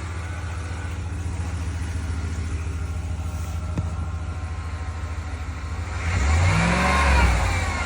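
2020 Ram 1500 engine idling steadily, then revved once about six seconds in, its pitch rising and falling back. The whine in the note is one that the owner puts down to the motor-generator unit.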